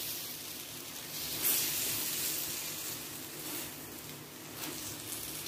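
Paratha frying in ghee on a nonstick pan, giving a soft steady sizzle. The sizzle grows louder about a second and a half in, then eases off.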